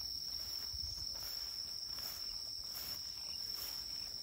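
Evening insects calling: a steady high-pitched trill, with a fainter hiss above it that pulses about twice a second.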